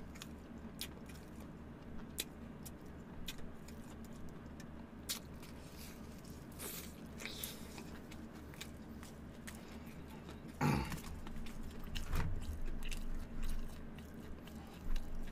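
Close-miked chewing of a mouthful of fried chicken: sparse soft wet mouth clicks over a faint steady low hum. Near the end come a few louder, low thuds.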